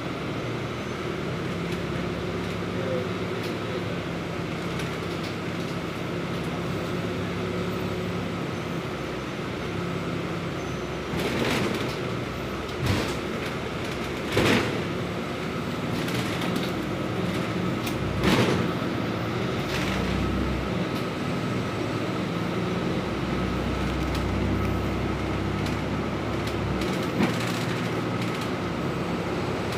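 The cabin of a moving city bus: engine and road noise run steadily as one low hum, with a few sharp knocks and rattles around the middle and one more near the end.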